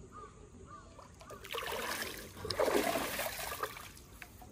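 Water splashing and sloshing as a hippopotamus comes up out of its pool, swelling about a second and a half in, loudest near the middle and easing off before the end.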